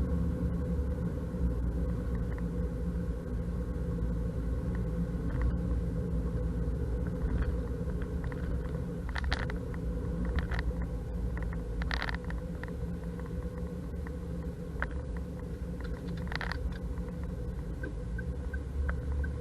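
Vehicle engine and road rumble recorded by a CT8500 action camera sealed in a waterproof case, with a few sharp clicks in the middle. The camera's rattle, which the uploader puts down to loose parts inside the camera, is lessened by the case and mat but still there.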